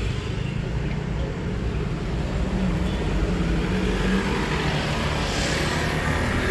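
Busy road traffic: vehicle engines running steadily, with one passing vehicle's tyre and engine noise swelling about five seconds in.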